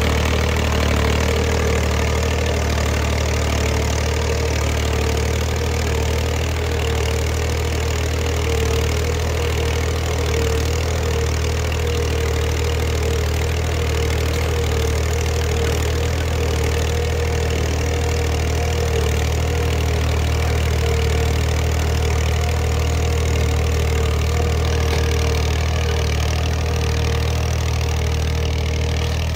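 Massey Ferguson tractor's three-cylinder diesel engine running steadily under load while pulling a zero-till seed drill.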